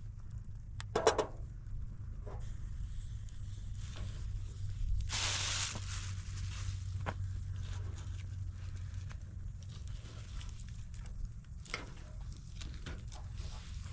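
Small wood fire in a metal fire tray crackling and ticking as sticks are handled and pushed in, over a steady low rumble. A brief loud hiss about five seconds in, and a short pitched call about a second in.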